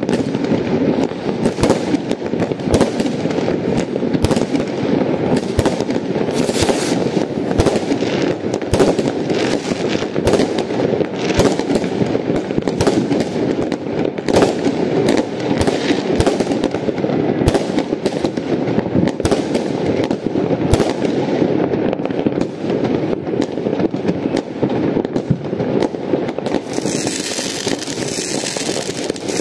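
New Year's Eve fireworks and firecrackers going off all over town: a continuous rumble of distant bangs and crackling, with many sharper reports. Near the end a rocket launching close by adds a loud hiss.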